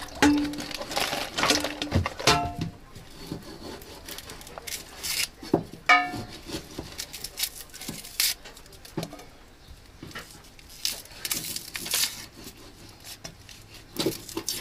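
Kitchen food-prep clatter: irregular knocks and scrapes of utensils, dishes and a wooden board, with a couple of short ringing clinks about two and six seconds in.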